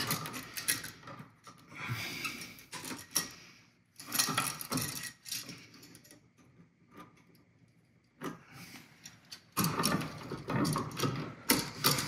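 Small metal clicks, rattles and rustles of wire strippers and a toggle switch being handled while stiff copper wire ends are bent into hook loops for the screw terminals. There is a quieter stretch in the middle, and the handling gets busier near the end.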